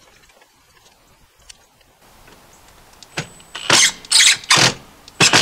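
Cordless drill-driver tightening a wire terminal screw, running in about five short bursts from about three seconds in as its clutch clicks at the set torque.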